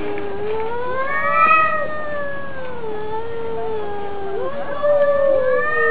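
Two cats yowling at each other in a face-off: long, drawn-out threat howls that slowly waver up and down in pitch. A second voice joins and overlaps the first about four and a half seconds in.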